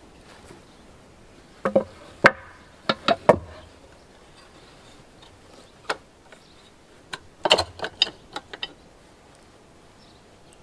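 Metal hand-plane parts knocking and clinking against a wooden workbench as the plane is handled and taken apart. There is a cluster of sharp knocks about two to three seconds in, a single one near six seconds, and a denser run of clinks around seven to eight and a half seconds.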